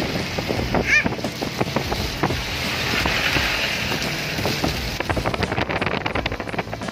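Heavy rainstorm: a steady rush of rain and wind, with wind buffeting the microphone. A brief high squeak about a second in, and a spell of rapid crackling ticks over the last two seconds.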